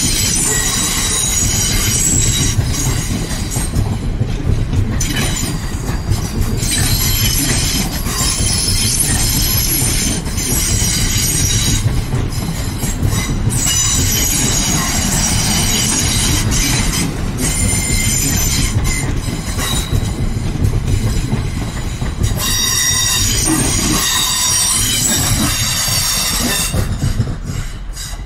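South Western Railway Class 450 Desiro electric multiple units running past at the platform: a steady rumble of wheels on rails under high-pitched squealing tones that rise and fade as the coupled units go by. It drops away in the last second or so.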